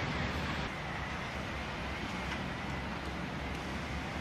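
Heavy multi-axle dump truck's diesel engine running as it drives, a steady noisy rumble.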